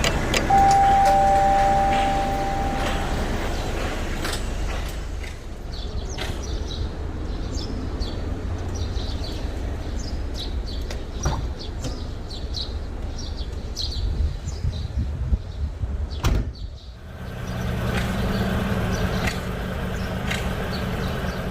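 Low steady vehicle rumble with scattered clicks and knocks, like doors and a sliding door being worked. Two steady tones sound together for a couple of seconds near the start. About sixteen seconds in the sound cuts off briefly and a steadier hum follows.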